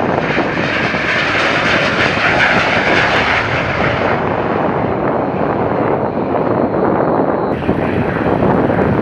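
Jet noise from a Finnish Air Force F/A-18C Hornet's twin turbofan engines on landing approach: a loud, steady roar with a high whine in the first four seconds. The sound changes abruptly about four seconds in and again near the end.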